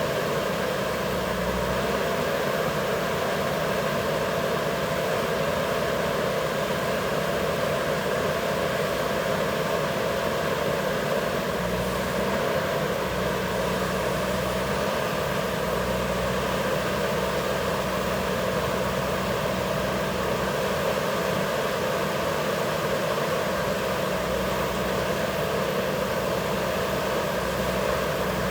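JCB backhoe loader's diesel engine running steadily, its note growing deeper and stronger for a few seconds near the middle and again toward the end as the machine works.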